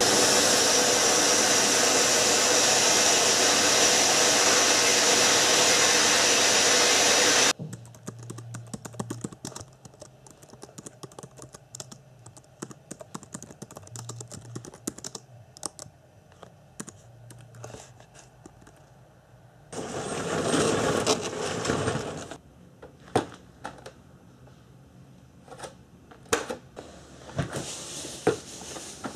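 Typing on a computer keyboard, irregular key clicks. Before it, a loud steady rushing noise for about seven seconds that cuts off suddenly, and another short noisy burst about twenty seconds in.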